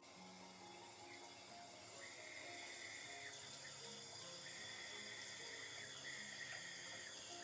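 Shower running: a steady hiss of falling water that grows a little louder about two seconds in, with slow instrumental music underneath.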